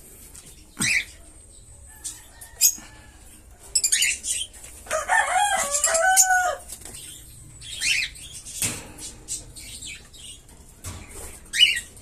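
Small caged parrots (budgies and lovebirds) fluttering and giving short, sharp chirps every few seconds. A rooster crows in the background from about five to almost seven seconds in, and there is a single knock about two seconds later.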